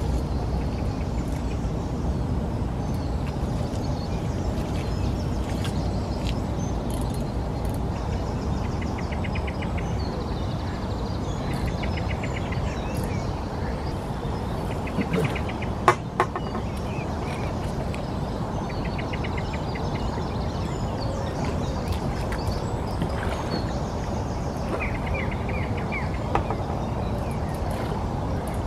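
Birds calling over a steady low background rumble, with one sharp click about sixteen seconds in.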